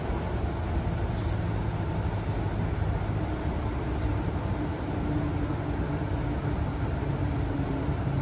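Cabin noise of a moving Tangara electric suburban train heard inside the carriage: a steady rumble of wheels on rail, with a faint hum joining about three seconds in and a couple of brief high squeaks near the start.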